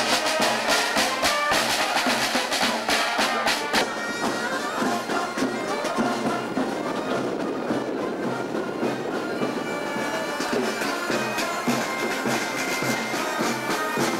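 Marching band playing: a dense, fast drum beat for the first few seconds, then held wind-instrument notes over lighter drumming.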